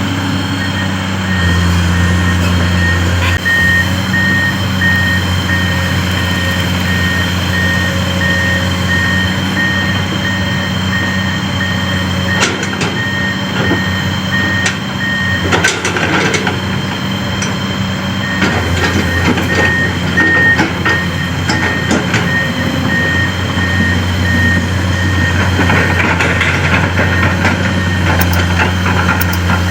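Diesel engine of a heavy loading machine running steadily while its reversing alarm beeps in a steady series, stopping for a few seconds midway, with scattered knocks and clatter in the middle.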